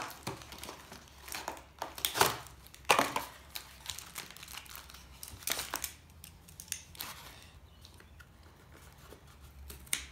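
Paper and cardboard packaging crinkling and rustling as it is handled and opened, in irregular bursts with short crackles, loudest a few seconds in and fainter later.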